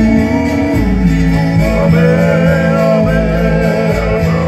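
Live Hawaiian trio music: strummed acoustic guitars over a bass line, with a male voice singing that comes in about a second in.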